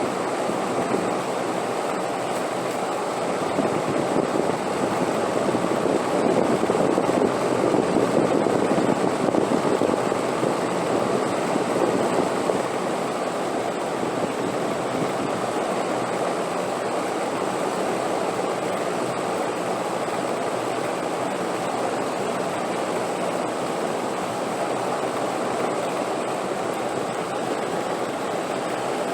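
Steady rushing wind, swelling louder for several seconds about a third of the way in before settling back to an even level.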